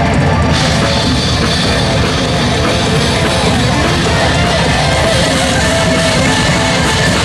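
Live metal band playing loud through the stage PA, drums and distorted electric guitars, as heard from the audience.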